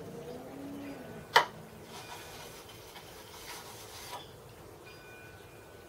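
A sharp metallic clink about a second in, then a machined aluminium milling-machine carriage part rubbed back and forth across a flat plate for several strokes.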